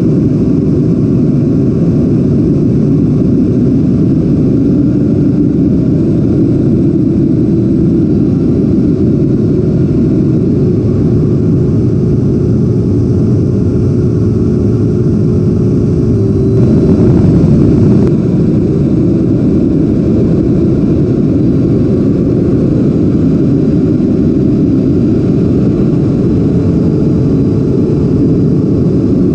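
Rushing air and ducted-fan noise from a camera in the cockpit of a 90 mm electric ducted fan RC jet in flight: a loud, steady, low rush with a faint hum that climbs a little early on. Past the middle, for about a second and a half, it grows briefly louder.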